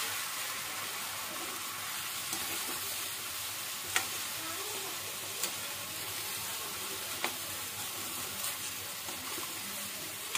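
Chicken pieces frying in oil in an aluminium kadhai, a steady sizzle, while a slotted metal spoon stirs and scrapes them through the pan, with a few sharp clinks of the spoon against the metal.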